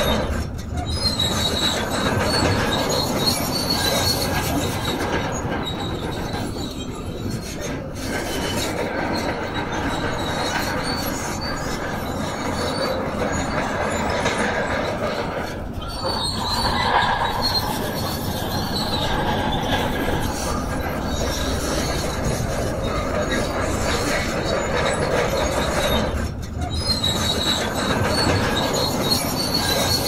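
Shantui DH17C2 tracked bulldozer working, its diesel engine running under load while the steel tracks squeal and clank. The noise stays loud and steady, easing briefly a few times.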